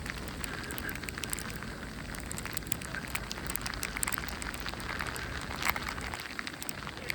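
Outdoor snowstorm ambience: a steady low rumble and hiss with many small crackling ticks, and one sharper tick about five and a half seconds in.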